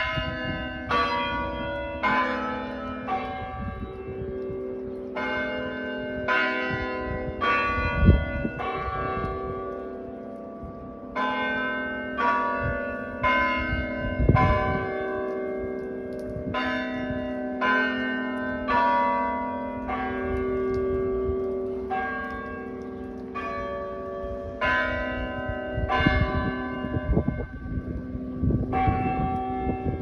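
Tower chime bells playing a slow tune, about one note a second, each note ringing on under the next. A few low rumbles come through, the loudest about eight seconds in.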